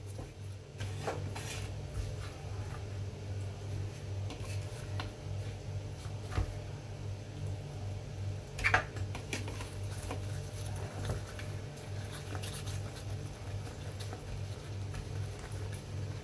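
Hands folding banana leaves around grated cassava for suman: scattered light rustles and small clicks of leaf and utensils, with one sharper click a little past halfway, over a steady low hum.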